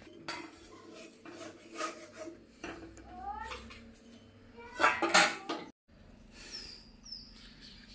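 Metal pots and utensils clinking and knocking, with a loud clatter about five seconds in. A short rising high-pitched call comes about three seconds in, and small bird chirps near the end.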